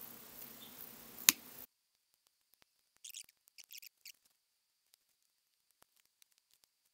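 Hand pruning cutter working on a tree's branches: one sharp snip a little over a second in, then a quick run of four or so short crisp cutting sounds around three to four seconds in. The background hiss cuts off abruptly about a second and a half in.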